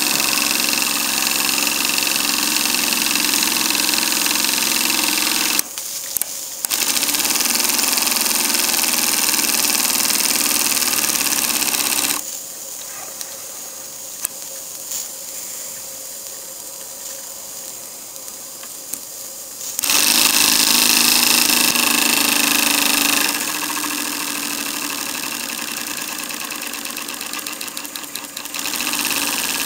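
TVR1A model twin-cylinder reversing marine steam engine running fast, a steady mechanical clatter with hiss. It drops away briefly about six seconds in and goes much quieter for several seconds mid-way, then comes back louder.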